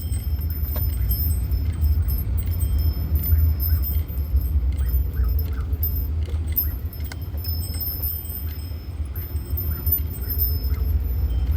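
Low, steady rumble of a van's engine and road noise heard inside the cabin, with keys jingling lightly throughout.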